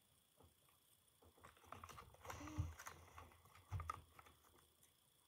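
Faint, scattered taps and clicks of hands with long acrylic nails handling items on a desk, the clearest about two and a half and nearly four seconds in.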